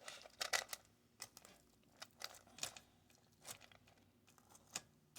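Scattered faint clicks and taps of a kitchen utensil against the air fryer basket as chicken breast pieces are turned over to cook evenly.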